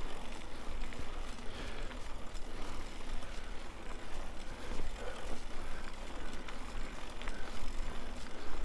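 Mountain bike being ridden along a dirt trail: tyres rolling over the ground with small rattles and ticks, over a steady low rumble on the microphone.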